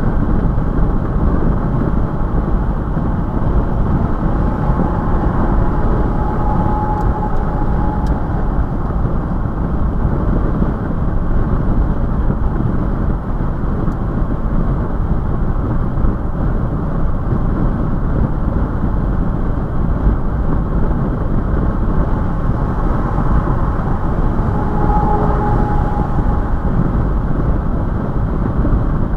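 Toyota FJ Cruiser cruising at about 72 mph on the highway: steady road, tyre and wind noise with engine drone, heard inside the cab. A faint whine swells briefly twice.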